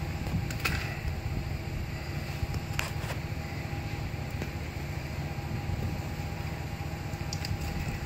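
Steady low background rumble with a faint steady hum above it and a few light clicks.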